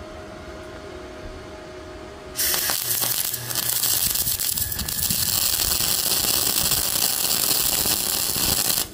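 Welding arc of a small, inexpensive MIG welder laying a slow bead on thick steel, striking about two and a half seconds in and running on with an uneven crackle and a brief break just after it starts. The metal is dirty, which is why the arc sounds weird while it still welds.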